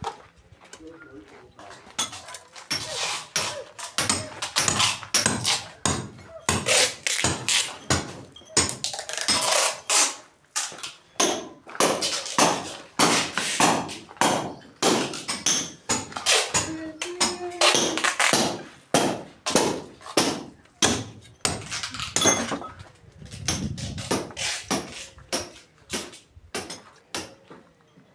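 Repeated hard strikes of a hand tool at work, irregular, about one to two a second, starting about two seconds in.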